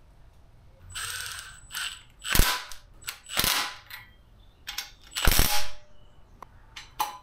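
Cordless impact driver on a long extension, run in several short bursts to drive in the oil pump bolts on a Ford 351 Windsor small block.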